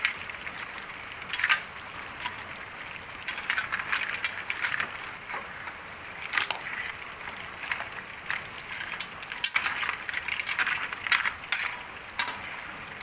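Crabs stir-frying in sauce in a wok: a steady sizzle, with repeated scrapes and clatters of a metal spatula against the wok and the crab shells as they are tossed.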